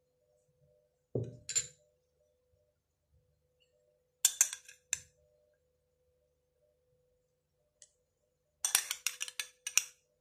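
Metal spoon clinking against glass bowls and a serving glass as fruit and yogurt are spooned out. The clinks come in three bouts: a couple about a second in, a few more around four seconds in, and a quick run of clinks near the end.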